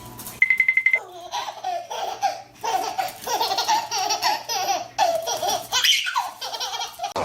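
High-pitched laughter, most like a baby's, in quick repeated bursts for about six seconds. It follows a brief high pulsing beep in the first second.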